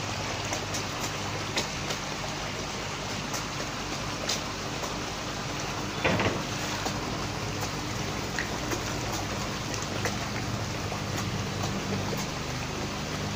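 Steady splashing and churning of water in a crowded koi holding tank, with a low steady pump hum underneath. A brief louder splash comes about six seconds in.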